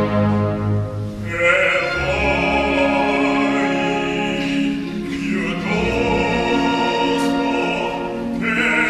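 A baritone singing an opera aria with an orchestra accompanying. The voice comes in about a second in with long held notes, breaks off briefly around the middle, and starts a new phrase near the end.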